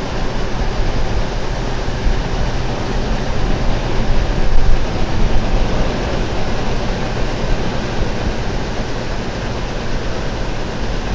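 Mobile bagging plant running: the belt conveyor and plant machinery make a steady rumble and hiss as sacks are carried up to a truck.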